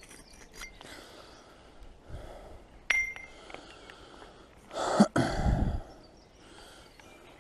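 A single sharp metallic clink with a brief ring about three seconds in, as metal finds knock together. About five seconds in comes a louder thump with a short rustling rumble.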